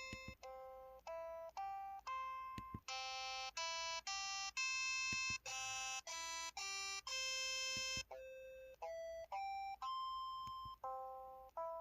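Keypad button tones of a KTF-X3500 mobile phone: a run of short electronic notes, about two a second, each at a different pitch, so that together they step up and down like a simple tune. The notes in the middle are held longer and sound brighter and buzzier than the short, fading ones around them.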